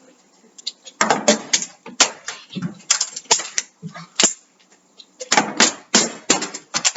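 Partly filled plastic water bottles being flipped and landing on the metal top of a microwave: a run of sharp knocks and clatters as they hit, rattle and tip over.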